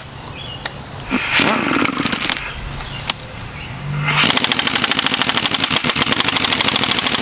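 Impact wrench hammering on the output-shaft yoke nut of a Turbo 400 automatic transmission, starting about four seconds in after some handling noise and running as a fast, even rattle.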